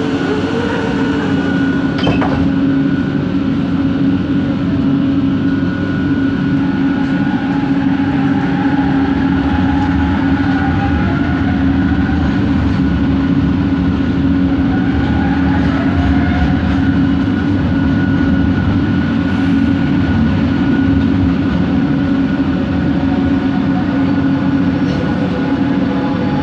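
Kelana Jaya Line LRT train running between stations, heard from inside the carriage: a steady droning hum from its linear induction motors with a high steady whine over it, the 'weird motor noise' of these sets. Fainter tones wander in pitch near the middle.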